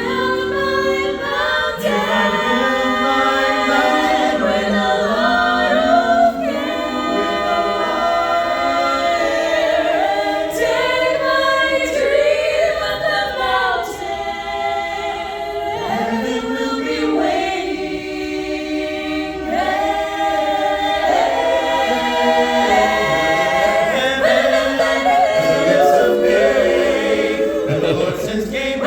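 A cappella choir of mixed voices singing in close harmony, holding and moving sustained chords without instruments.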